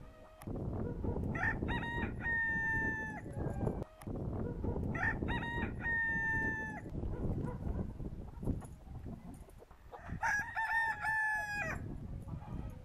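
Pavlovskaya rooster crowing three times, a few seconds apart, each crow ending in a long held note, over a steady low rumble.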